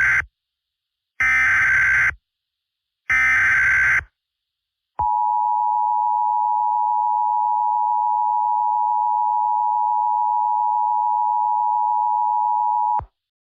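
Emergency Alert System alert opening: the end of one SAME header data burst and then two more, each a one-second buzzing screech with a second's gap between. After a short pause comes the EAS attention signal, a steady two-tone beep held for about eight seconds and then cut off sharply.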